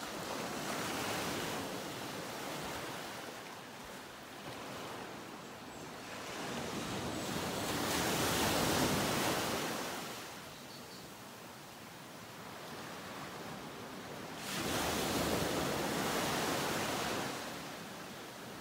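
Ocean surf: waves washing in and drawing back, the hiss swelling three times, about every six to seven seconds.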